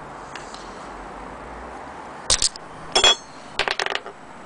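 Parts of a small antique brass microscope clinking and knocking against each other as they are handled. There are two sharp clicks about halfway, a ringing metallic clink a moment later, then a quick run of small clicks.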